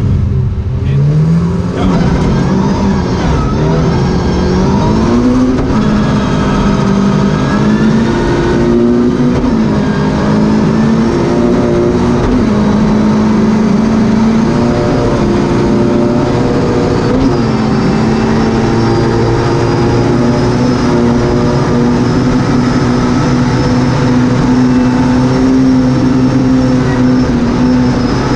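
Volvo 240 Group H rally car's engine heard from inside the cabin, pulling hard from a standing start: the revs climb and drop back at each upshift, then hold high and steady at speed in fifth gear.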